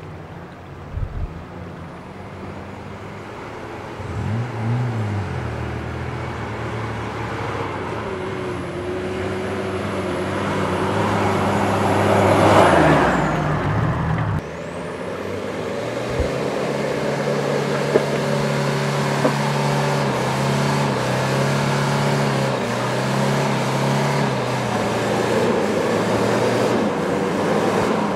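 Four-wheel-drive off-road vehicles' engines labouring at low speed on a muddy forest track. One engine revs up and down briefly about four seconds in, a vehicle grows louder and passes close around twelve seconds before the sound cuts off sharply, then another engine pulls steadily.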